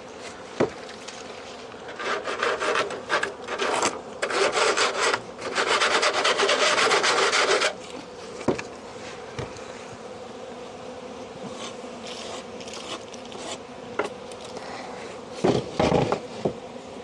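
Leaf debris being scraped out of a wooden beehive bottom board, in rough bursts for about six seconds, over a steady buzz of honeybees. A few knocks near the end.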